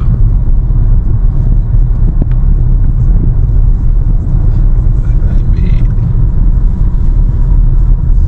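Car driving, with a steady low rumble of road and engine noise that stays even throughout.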